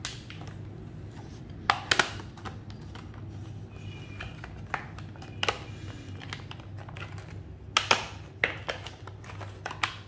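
Stiff clear plastic blister packaging crackling and snapping as it is prised open by hand: scattered sharp clicks, loudest in two clusters about two seconds in and near the end.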